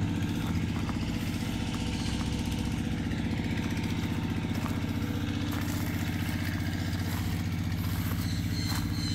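Four-cylinder turbocharged engine idling steadily with an even, fast low pulse.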